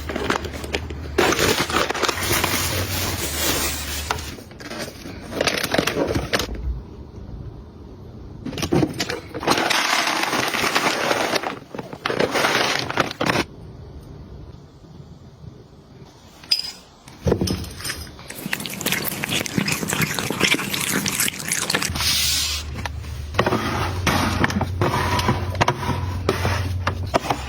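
Packaging and household items handled: crinkling, rustling and scraping in bursts of a few seconds each, with quieter gaps and a few sharp clicks about halfway through.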